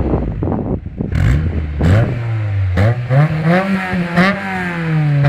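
Honda S2000's four-cylinder engine with a loud aftermarket-sounding exhaust: it runs low and ragged with crackles for the first two and a half seconds, then the revs climb and it holds higher revs with quick repeated throttle blips, about two a second.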